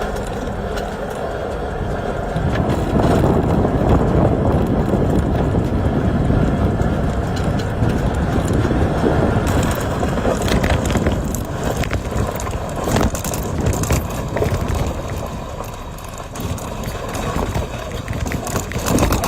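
A vehicle on the move: steady road and body noise, with sharp knocks and rattles coming more often from about halfway through.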